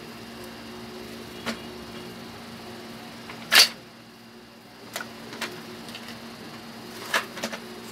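Plastic clicks and knocks from handling a toy cash register. The loudest is a single sharp clack about three and a half seconds in, as its cash drawer comes open, with a few lighter clicks before and after it.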